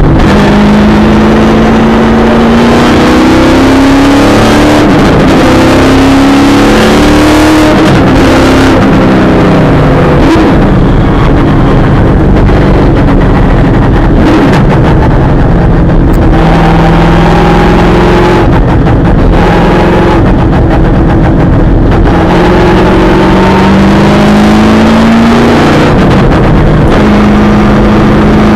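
V8 Supercar's V8 engine heard very loud from inside the cockpit while lapping. Its pitch climbs through each gear and drops at the shifts and when lifting for corners, over and over.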